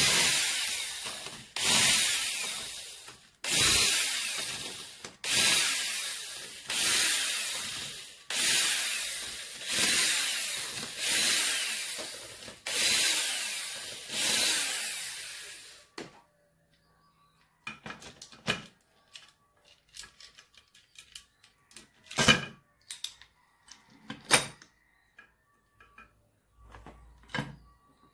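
Cordless drill-driver backing bolts out of a Suzuki Hayabusa's aluminium cylinder head: about nine short bursts in a row, each starting hard and winding down in pitch. After that come scattered light clicks and knocks as parts on the head are handled.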